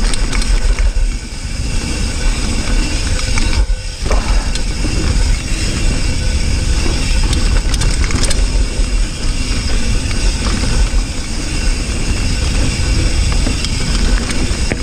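Mountain bike riding over a dirt trail, heard from a GoPro: a steady rush of wind on the microphone and the rumble of knobby tyres, with a brief lull about four seconds in.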